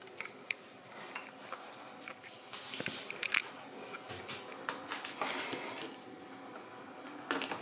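Crinkling and clicking of a thin plastic cheese-slice tray being handled as slices are lifted out. The rustling comes in short bursts, loudest about three seconds in, again around five seconds in and briefly near the end.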